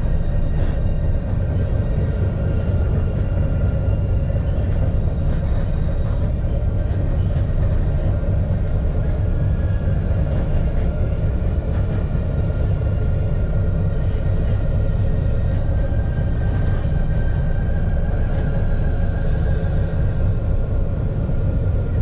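Alstom Citadis low-floor tram running between stops, heard from on board: a steady low rumble of wheels and running gear on the rails, with faint steady whining tones above it.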